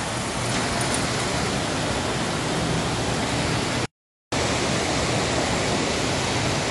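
Standard gauge toy trains running on a large layout: a steady rushing rumble of motors and wheels on track, cut off by a brief dropout about four seconds in.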